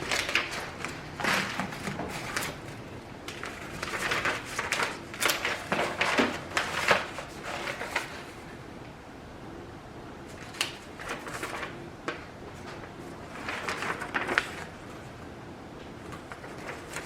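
Handling noises as the new tool's parts and packaging are moved about: irregular rustling with sharp clicks and light knocks, falling quieter for a couple of seconds about eight seconds in.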